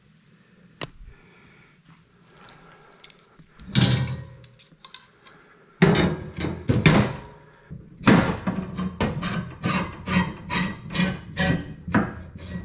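Steel tine assemblies and bushings of a tow-behind plug aerator clanking on the steel axle as they are worked along it by hand. A few separate clanks give way in the second half to a quick run of knocks, about three a second.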